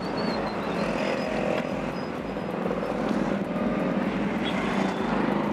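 Steady din of road traffic, with passing vehicle engines running.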